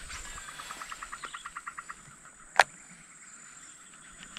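A frog calls in a rapid train of short pulses, about ten a second, fading out after about two seconds and starting again near the end. A single sharp click sounds about two and a half seconds in.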